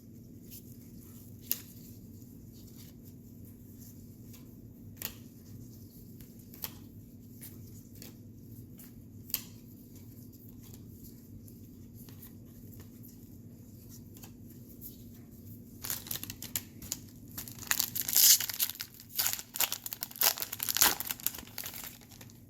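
Scattered faint clicks of baseball cards being handled, then from about 16 seconds in, several seconds of loud crinkling and tearing as a trading-card pack wrapper is ripped open.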